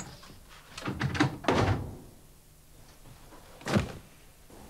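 A few knocks and thuds about a second in, then one sharp thump near the end.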